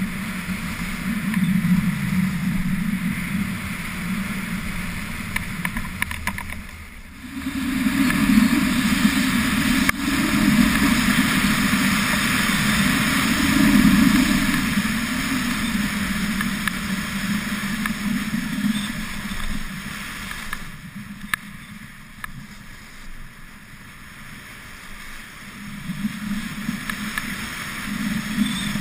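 Wind rushing over the microphone and skis sliding on packed snow during a fast downhill ski run. The rush drops briefly about seven seconds in and eases again for a few seconds later on.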